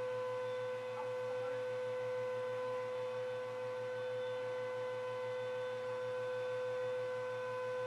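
Upright vacuum cleaner and hair dryer running together: a steady motor whine with a low, fast-pulsing hum under it, unchanging throughout.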